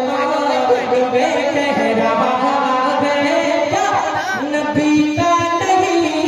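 A man singing a naat (Urdu devotional poem) into a microphone, holding long wavering notes in a melismatic line.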